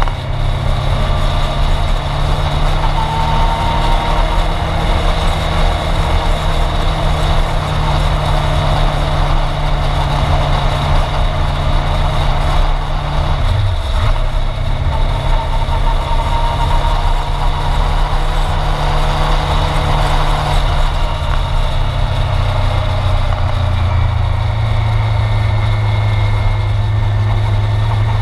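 Sport motorcycle engine running steadily on the move, with wind rushing over a camera mounted low on its fairing. The engine note dips briefly about halfway through, then steadies again.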